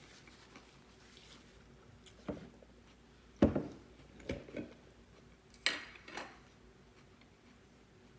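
Cutlery knocking and clinking against a dish: a handful of separate sudden strikes, the loudest about three and a half seconds in and two brighter clinks around six seconds.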